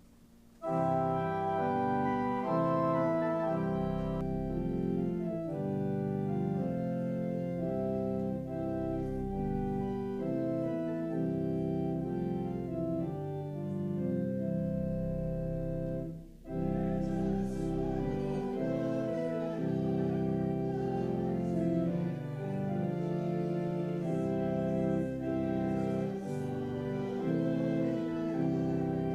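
Church organ playing sustained chords. It starts about a second in and breaks off briefly a little past halfway before going on.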